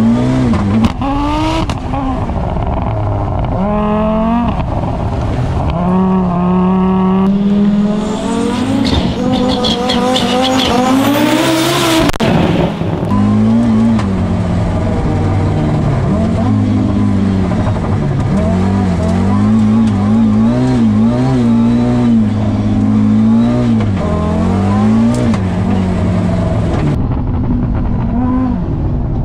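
Audi Sport quattro S1 rally car's turbocharged five-cylinder engine, heard from inside the cockpit, revving up and dropping back through gear changes while driven hard on a loose dirt track. For a few seconds around the middle, a rush of tyre and loose-surface noise rises over the engine.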